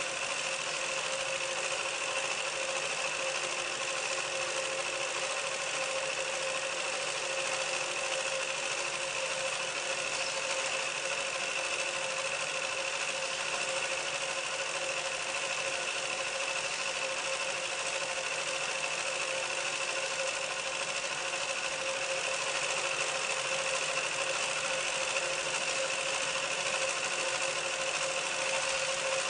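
Steady mechanical drone: an unchanging hiss with a constant mid hum and a higher whine running through it.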